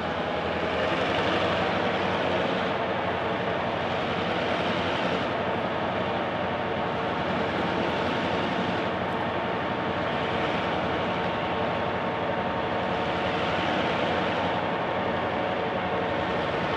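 Heritage EMD-engined diesel-electric locomotives, S-class S303 leading, working hard as they crawl up a steep grade with a loaded grain train: a steady, heavy engine drone that hardly changes.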